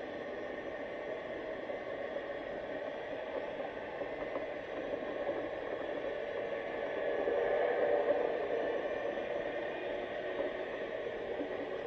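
Steady underwater hiss picked up by a GoPro in its sealed housing, swelling a little louder about seven seconds in.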